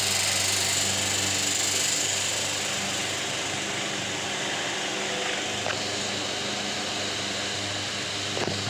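Electric wall fan running: a steady motor hum under a rush of air from the blades. The airy hiss eases a little about three seconds in, and a couple of light clicks come later on.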